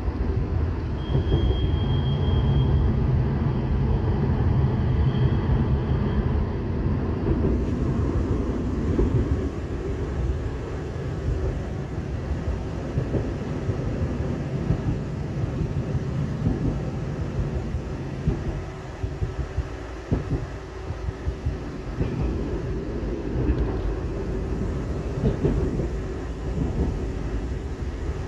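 Inside a moving Pesa Swing low-floor tram: the steady rumble of wheels on the rails with a low traction-motor hum, and a thin high whine heard twice in the first few seconds.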